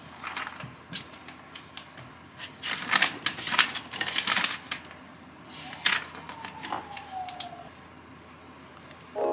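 Desk objects being handled: clicks, taps and rattles as a notebook is closed and pens and markers are rummaged in a desk pen cup, loudest in the middle. A short squeak slides down in pitch about two-thirds of the way through.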